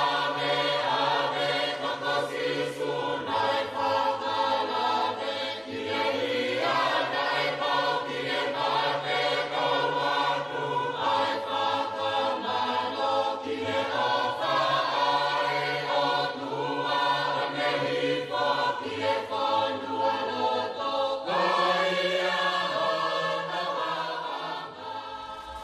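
Background music of a choir singing sustained chords, the harmony shifting every few seconds; it fades out near the end.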